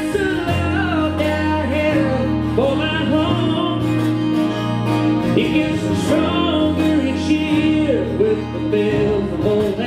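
Live acoustic music: a man singing over acoustic guitars, with a keyboard holding low bass notes that change every few seconds.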